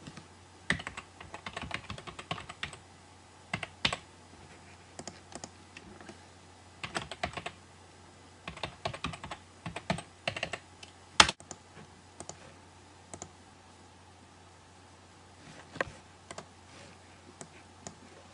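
Computer keyboard typing: irregular bursts of key clicks with pauses between them, and one sharper, louder click about eleven seconds in.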